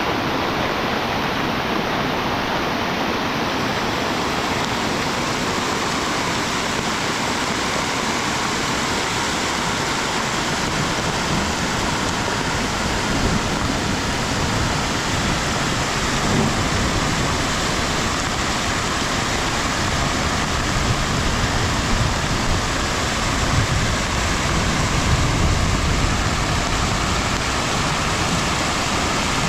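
Heavy rain falling steadily, an even rushing hiss, with some low rumbling growing stronger in the second half.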